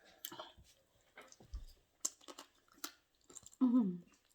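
Close-up chewing and crunching of food, heard as scattered short clicks and crunches. Near the end comes a short vocal sound that falls in pitch; it is the loudest moment.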